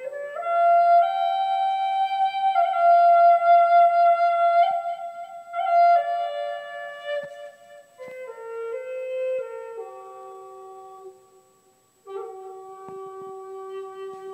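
Background music: a slow melody of long held notes on a flute-like wind instrument, starting with an upward leap and stepping mostly downward, with a brief pause about three-quarters of the way through.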